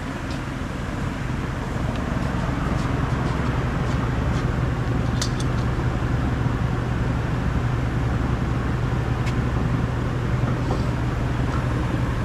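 Steady low hum of running shop machinery, growing a little louder about a second in, with a few short metal clinks as a planetary gear is handled at the final-drive planet carrier.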